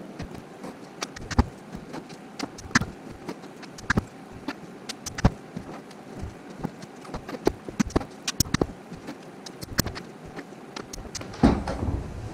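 Irregular light clicks and knocks of MDF pieces being handled and set down on a workbench, with a louder clatter near the end.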